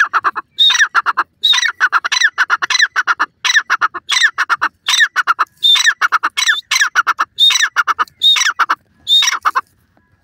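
Grey francolin (teetar) calling: a loud, harsh phrase repeated about every three-quarters of a second, each opening on a high note that slides down and running into a quick rattle of shorter notes. The calling stops shortly before the end.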